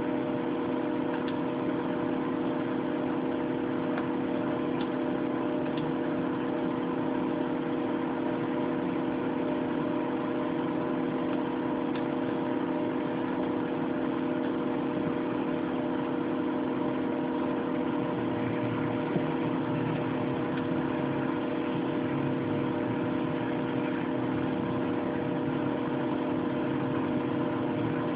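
A steady machine hum made of several held tones, unchanging in level, with a few faint clicks.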